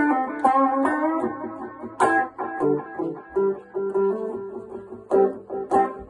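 Electric guitar played with picked single notes and short melodic phrases, on a prototype guitar with a PT2399 delay circuit built into its body.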